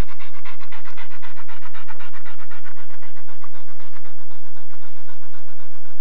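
Rottweiler panting fast and hard, several breaths a second, while it holds its grip on the decoy; the panting grows a little fainter near the end.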